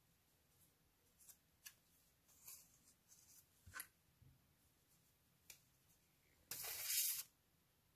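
Faint taps and clicks of a plastic glue bottle and cardboard pieces being handled, then a short hiss about six and a half seconds in as the bottle of tacky glue is squeezed at the nozzle.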